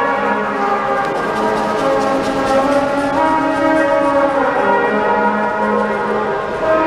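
Small band of trombone, clarinet and trumpet playing a tune together, several sustained notes overlapping, with metallic ringing percussion from pots and pans played by a seated musician.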